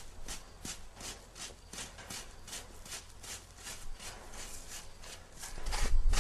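Long-handled asphalt rake scraping over loose asphalt in quick, even strokes, about three a second. Near the end a much louder low rumble comes in.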